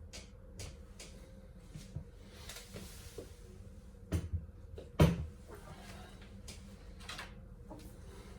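Scattered clicks and light knocks of door hardware and tools being handled, with a pair of knocks about four seconds in and a single sharper knock just after that is the loudest.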